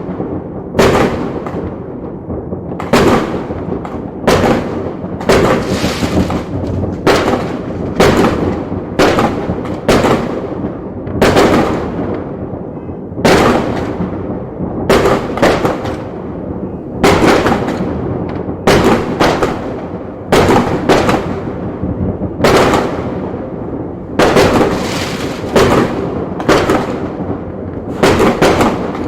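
Chinese fireworks going off: a string of loud bangs about one to two seconds apart, with a continuous crackle between them.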